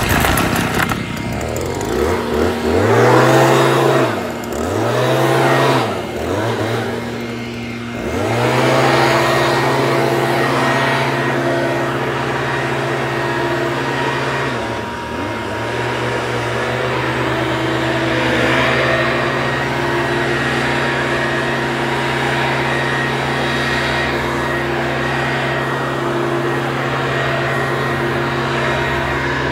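Leaf blower engine revved up and down three times, then held at a steady high speed with a rush of air, dipping briefly once about halfway through.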